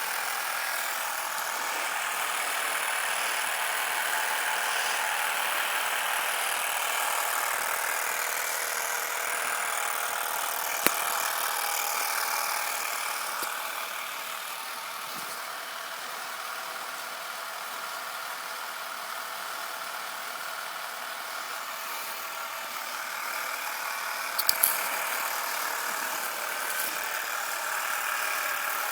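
Small battery-powered motor in a toy kit running steadily with a high whir, a little quieter through the middle. A sharp click about eleven seconds in and a couple more near the end.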